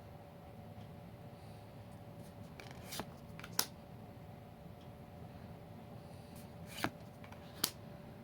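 Trading cards and packaging being handled, soft rustling with two pairs of short sharp clicks about three and seven seconds in, over a steady low hum.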